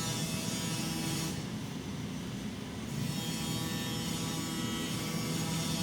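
Steady low electrical hum under a rough, even background noise: shop room tone.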